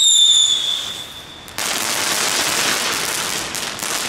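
Small category 1 ground fireworks burning on paving: a high whistle that falls slightly in pitch and dies away about a second and a half in, then a hissing spray of sparks with a few crackles near the end.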